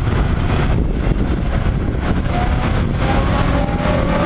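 The turbofan engines of an Embraer 190 airliner running with a loud, steady rumble as it rolls down the runway after landing. About two seconds in, a whine joins the rumble and rises slowly in pitch.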